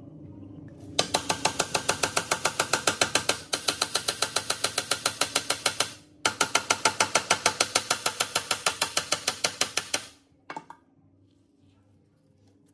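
Rusty gear-and-shaft mechanism of an old machine being turned over, giving a rapid, even clicking of about seven clicks a second, like gear teeth or a pawl catching. It breaks off briefly twice, stops, and one last click follows.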